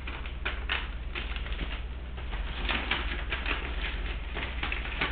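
A paper letter rustling and crinkling as it is handled and folded, a quick irregular run of crisp crackles.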